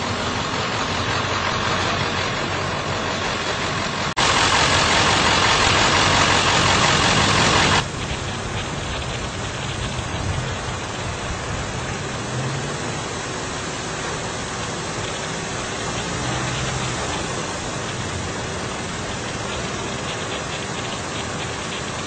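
Street traffic with car engines idling, a steady rumble. A loud hiss cuts in suddenly about four seconds in and cuts off just as suddenly a few seconds later.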